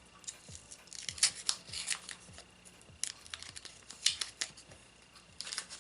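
Small handling noises: a few clusters of sharp clicks and scrapes as a resin-coated cheese tool is pulled out of its tape-wrapped holder.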